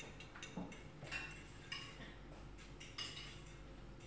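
Spoon clinking against the side of a bowl while stirring, a series of light, irregularly spaced clinks.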